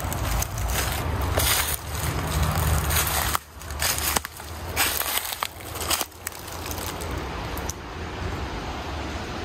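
Footsteps crunching through dry leaf litter and dead twigs on a forest floor, in uneven steps that thin out near the end, over a steady low rumble of wind on the microphone.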